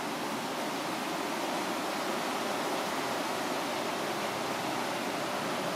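River water of the Falls of Dochart rushing loudly over rocky rapids: a steady, unbroken wash of water noise.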